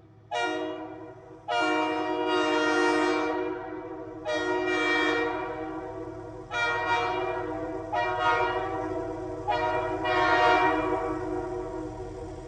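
Brett's RS3K three-chime train air horn sounding a chord in about six blasts run together, each re-attacked before the last dies away; the final blast is held about four seconds.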